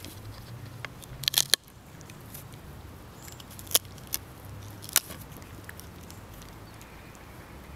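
A Puli dog gnawing on a wooden branch, its teeth cracking on the wood in sharp clicks: a quick cluster about a second and a half in, then single cracks around four and five seconds.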